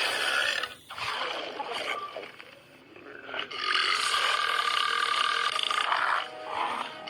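A dragon character burping: a belch at the start, then a long belch of nearly three seconds from about three and a half seconds in, held on one pitch.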